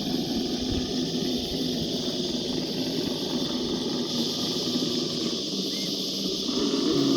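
Electric motor and gear drive of a radio-controlled rock crawler whining as it climbs over rock, over a steady high insect buzz.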